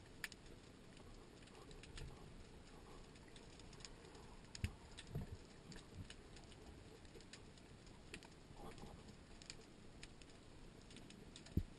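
Faint underwater ambience: scattered sharp clicks and crackles, with a few dull low knocks near the middle.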